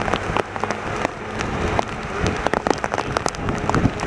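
Rain pelting a vehicle, heard as a steady hiss with many irregular sharp drop impacts, under a faint steady hum.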